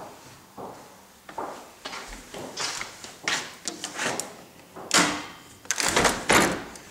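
Sliding patio door being worked in its track: a series of short scrapes, rattles and knocks, loudest from about five to six and a half seconds in.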